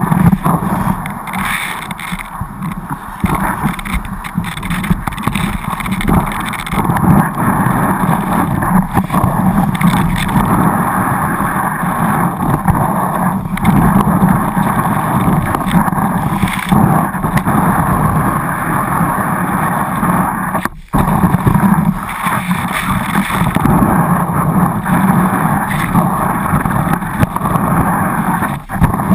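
Skiing noise heard through a GoPro Hero2 camera: a continuous loud rush of wind over the camera and skis running on snow, with one brief drop-out about two-thirds of the way through.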